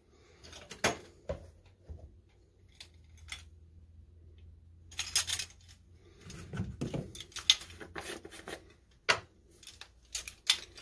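Plastic measuring spoons and a spice jar being handled while granulated garlic is measured out: irregular small clicks, taps and clinks.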